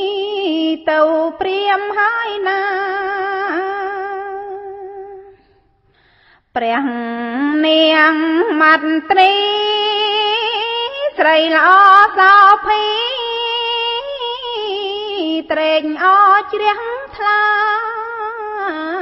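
A woman singing Khmer smot, the Buddhist verse-chanting style, solo, in long, ornamented, wavering melodic lines. She stops for about a second some five seconds in, then starts again on a lower note.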